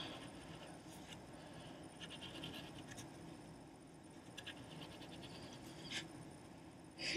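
Faint scratching of a pencil sketching on paper, in short runs of quick strokes with a few light taps. A brief louder sound cuts in right at the end.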